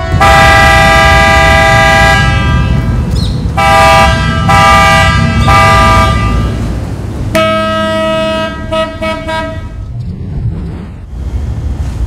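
Ferry ship horns sounding: one long blast, then three short blasts, then another long blast from a different-sounding horn, over a steady low rumble. These are the signals the ferries give when departing.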